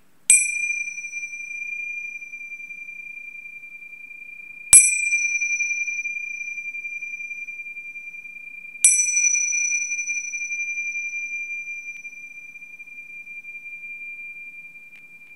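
A chime struck three times, about four seconds apart, each strike ringing on in a clear high tone that slowly fades. It is rung three times as a memorial, in honour of pets that have died.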